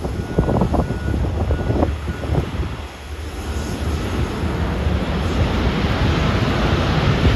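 Jet engine roar of a four-engine Boeing 747-8F freighter, swelling steadily louder from about three seconds in.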